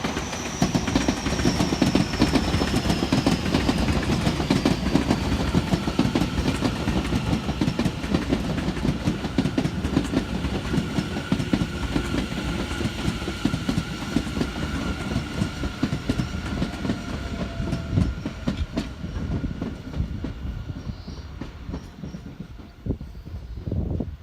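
Tobu Tojo Line electric train running past, its wheels clattering over the rail joints, with a thin whine that falls in pitch over the first few seconds.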